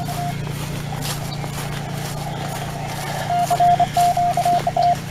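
Morse code (CW) from an amateur radio station: a single keyed tone beeping in dots and dashes, briefly at the start and again in a louder run about three seconds in. Under it runs the steady drone of a portable generator.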